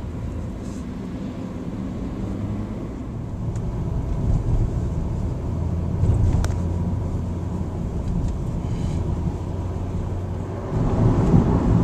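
Car engine and road noise heard from inside the cabin while driving, a steady low hum that grows louder about four seconds in and again near the end.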